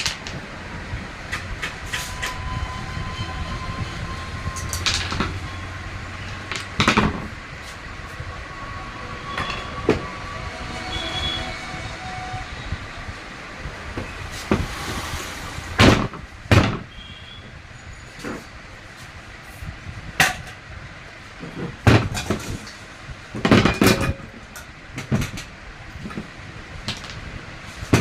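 Irregular knocks and clinks from hands working on a ceiling fan's parts, over a steady low rumble that fades after about seven seconds.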